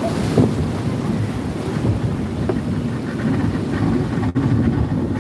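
Wind rumbling on the microphone over the wash of surf around a small open fishing boat pushing out through breaking waves, with a momentary dropout about four seconds in.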